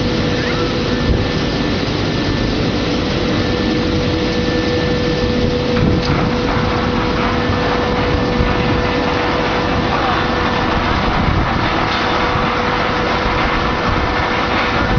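Industrial fruit and vegetable washing machine running: a steady machine noise with a constant humming tone.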